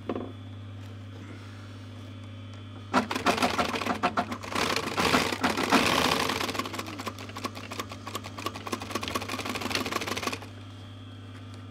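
Industrial sewing machine stitching a corner seam through cushion fabric. A fast, continuous run of needle strokes starts about three seconds in and stops near the end, over a steady low motor hum.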